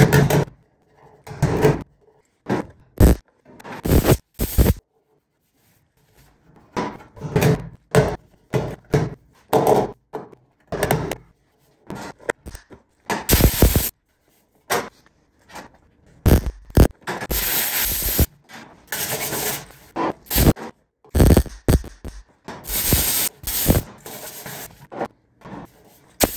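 Hammer tapping a sheet-steel patch panel into the cab's old fuel-filler hole, in short bursts of blows, with longer stretches of scraping and rubbing on the metal.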